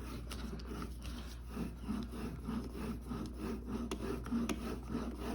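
Steel bevel of a single-bevel broadhead, held in a sharpening jig, stropped on cardboard loaded with polishing compound: a run of short rubbing strokes, drawn backward only, with a small click about four seconds in.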